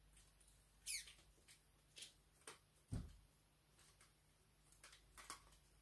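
Faint clicks and knocks from a 3366 camera tripod's head as it is handled and adjusted, with a short squeak falling in pitch about a second in and a duller knock about three seconds in.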